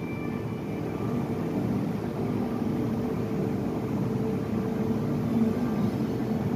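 Steady low background hum at an even level, with a few faint held low tones and no distinct events.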